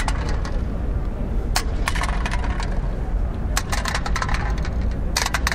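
City street ambience: a steady low rumble with scattered clusters of sharp clicks and taps.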